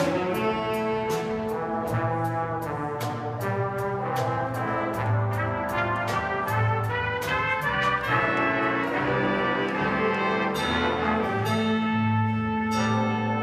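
Jazz big band playing: the brass section of trumpets and trombones holding full chords over a steady ticking beat.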